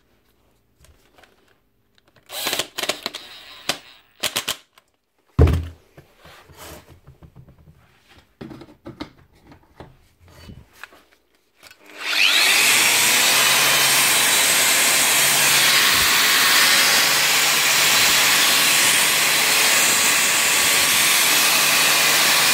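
Makita GA4540R angle grinder: scattered clicks and knocks as it is handled, then about twelve seconds in the motor is switched on, spins up and runs steadily at full speed with no load. It is running again after a shorted field coil was replaced.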